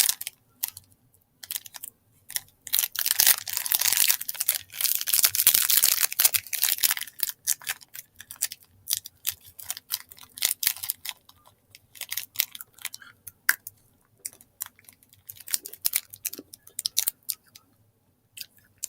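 Wrapper or plastic packaging crinkling and tearing for several seconds, then scattered light clicks and rustles of handling.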